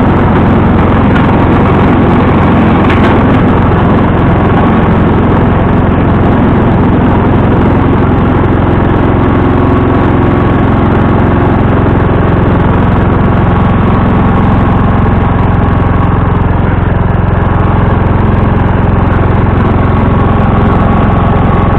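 John Deere 140 H3 garden tractor's engine running steadily.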